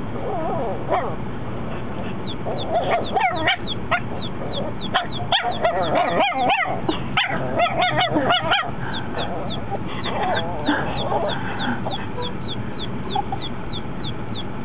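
Four-month-old Chihuahua puppy giving short, high-pitched yips and barks, its first barking. Most come in a quick run through the first half, then fewer and fainter.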